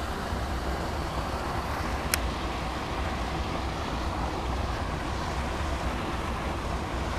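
Wind buffeting the microphone, a steady low rumbling rush, with one sharp click about two seconds in.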